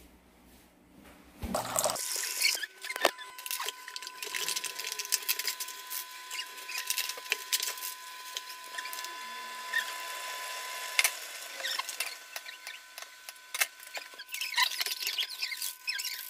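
Crinkling and tearing of instant cup noodle packaging: foil lids peeled back and seasoning sachets torn open and handled, a dense crackle of small rustles and clicks starting about two seconds in.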